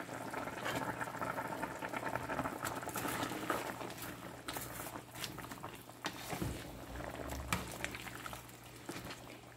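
Soup broth boiling in a pot with chicken, squash and napa cabbage stalks: a steady bubbling crackle that gets quieter in the second half.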